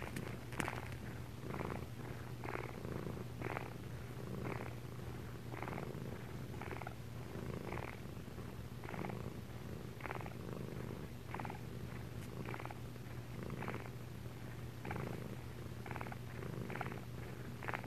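Domestic cats purring during nursing: a steady low rumble that swells about once a second with each breath.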